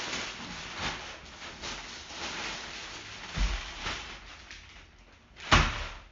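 Rustling and scraping of the folded inflatable kayak and its parts being pulled out of their carry bag, ending with a single thump near the end.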